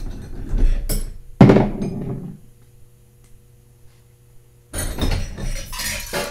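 Metal tools and parts clinking and clattering on a workbench while being rummaged through, with one sharp knock about a second and a half in and more rattling near the end.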